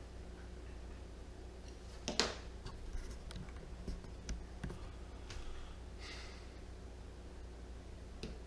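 Scattered small clicks and scrapes of tools and hands on a laptop's plastic case during disassembly, the loudest scrape about two seconds in, over a low steady hum.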